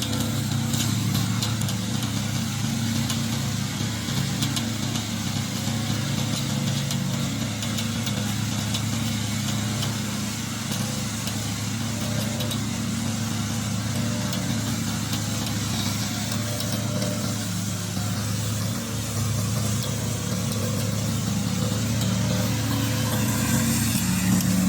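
Remote-control slope mower's small engine running steadily at a constant speed.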